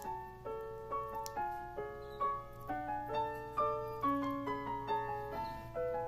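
Background piano music: a light melody of single notes struck at an even pace, about two a second.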